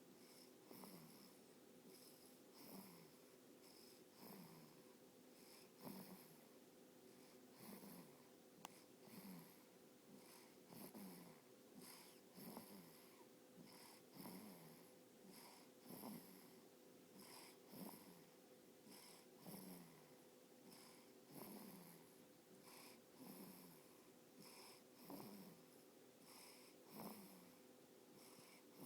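Faint, steady snoring: a short breath sound falling in pitch roughly every one and a half to two seconds, repeating evenly.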